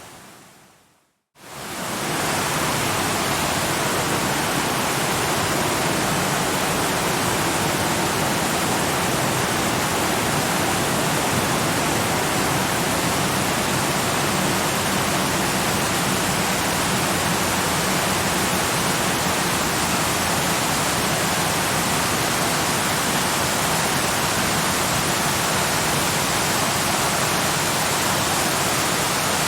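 Steady rushing hiss of a waterfall, an even wash of falling water. It dies away to a moment of silence at the very start and swells back in within the first two seconds, then holds steady.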